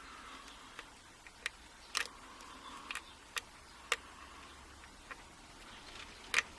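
Small sharp clicks and taps of a lock pick and tension tool working the pins of a six-pin euro cylinder lock, spaced irregularly. The loudest click comes near the end, as pin 3 sets and the core drops back into its false set.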